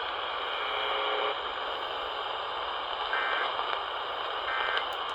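Radio static hiss with a brief buzzy tone about a second in, then two short warbling data bursts of Emergency Alert System end-of-message tones, one just past halfway and one near the end, marking the close of the alert.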